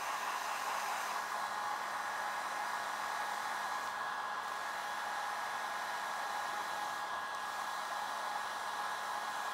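Handheld hot-air dryer blowing steadily, a continuous rushing hiss with a faint motor whine, drying freshly dabbed-on leather paint.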